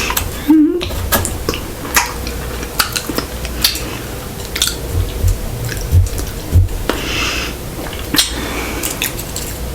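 Close-miked chewing of sushi: many small wet mouth clicks, with a few low thumps between about five and six and a half seconds in.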